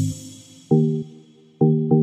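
Background electronic music: short pitched synth notes with sharp starts, one about two-thirds of a second in and two more close together near the end.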